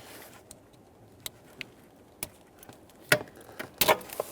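Sharp plastic clicks and rattles of a gray wiring-harness connector on the ignition switch harness being unlatched and pulled apart: a few light ticks, then louder clicks about three seconds in and near the end.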